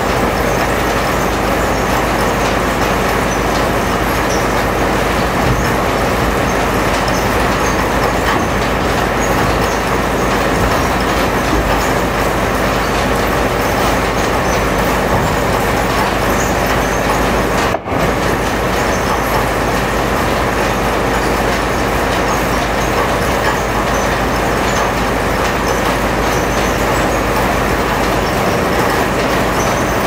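Sawmill machinery running steadily: a loud, even mechanical noise with a low hum underneath, dipping for an instant about eighteen seconds in.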